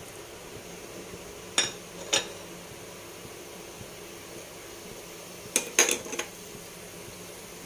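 Light clinks and taps of kitchenware against a metal kadai: two about a second and a half in, then a quick cluster of taps near six seconds, over a faint steady hiss.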